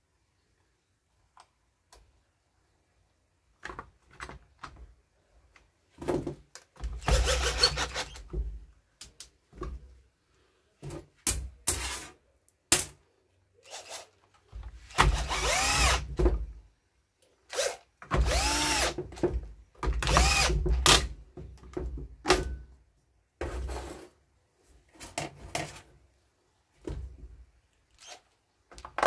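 Cordless DeWalt drill-driver with a long screwdriver bit running in short bursts, spinning up and down as it turns the screws of a chainsaw's housing. The bursts start about six seconds in.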